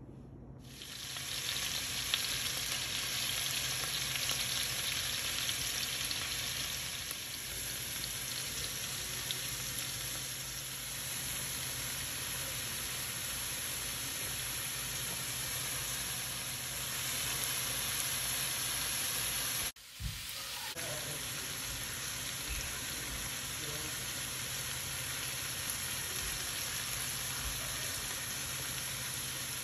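Grouper fillets and sliced onions sizzling in hot oil in a frying pan, a steady sizzle that starts about half a second in, with a brief drop-out about twenty seconds in.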